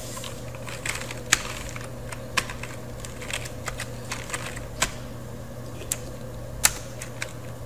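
Computer keyboard being typed on: about a dozen single keystrokes, irregularly spaced, over a steady low hum.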